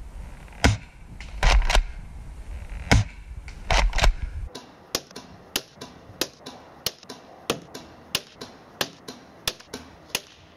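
ASG SAS-12 spring pump-action airsoft shotgun being shot and pumped: sharp clacks, single and in pairs, over wind rumble on the microphone for about the first four seconds. After that comes an even run of short sharp ticks, about two a second.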